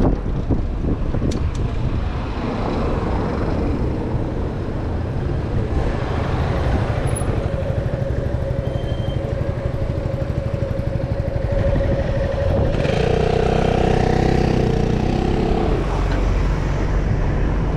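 Riding a bicycle through city traffic: wind buffeting the microphone and tyres rumbling over brick pavement, with motor vehicle engines alongside, a motorcycle among them. A steady engine note holds through the middle, and a vehicle engine swells and passes close by about two thirds of the way through.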